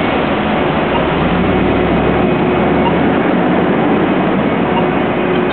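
Busy street traffic: a steady wash of engine and tyre noise, with a heavier engine rumbling low from about one to two seconds in.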